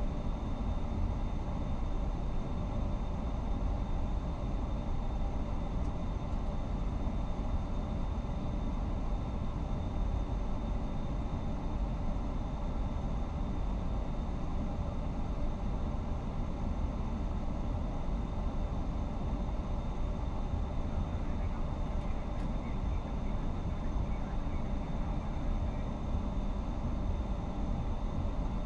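Steady low rumble on the flight deck of an Airbus A350-900 taxiing at low speed, with faint steady high-pitched tones over it.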